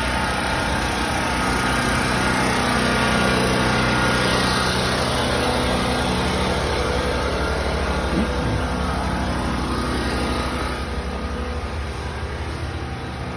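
A motor running steadily with an even drone, easing off slightly near the end.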